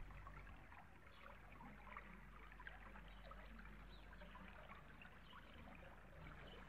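Near silence with faint river water trickling and lapping.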